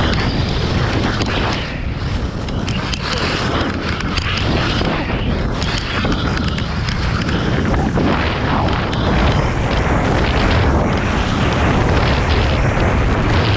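Wind buffeting the microphone of a camera carried by a skier speeding downhill: a loud, steady low rumble, with the skis scraping and chattering over chopped-up snow.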